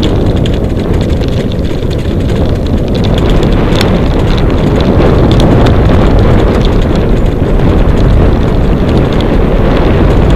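Steady, heavy wind buffeting on the microphone of a camera riding a moving sled-dog rig, with a few sharp knocks as the rig jolts.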